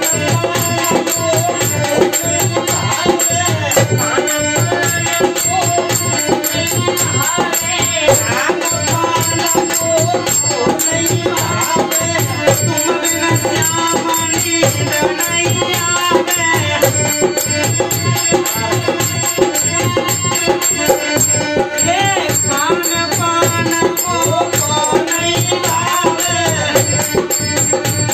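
Hindi devotional bhajan: a male voice singing, accompanied by a harmonium holding a steady drone and a dholak barrel drum beaten in a steady rhythm.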